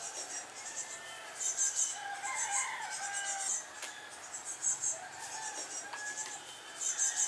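Birds calling: short, rapid, high-pitched chirping trills about once a second, with thinner calls lower down and a fuller call about two to three seconds in.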